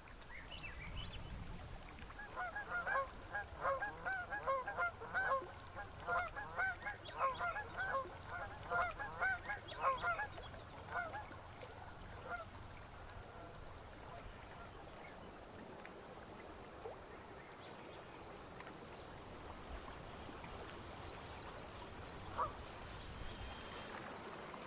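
Geese honking in a fast run of calls, several a second, starting about two seconds in and dying away after about ten seconds, over a steady low background rush.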